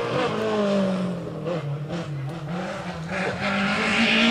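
Rally car engine slowing, its pitch falling and wavering over the first three seconds, then revving up steadily and getting louder as it accelerates.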